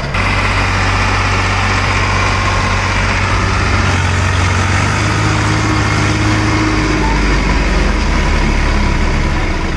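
Diesel tractor engines running loud and steady as a mud-stuck Swaraj 744 FE is being pulled out by a second tractor; the engine note drops lower about seven seconds in.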